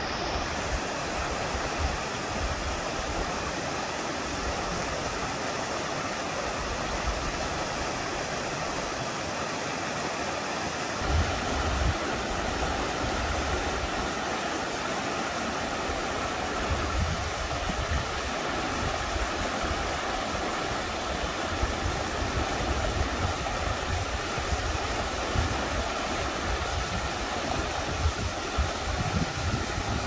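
Steady rush of a mountain stream. From about eleven seconds in, irregular low rumbling gusts come in on top of it.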